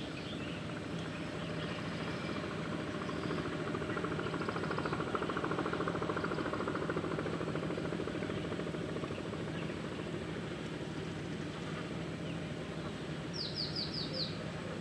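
Outdoor ambience beside a pond: steady background noise with birds chirping now and then, and a quick run of about five chirps near the end.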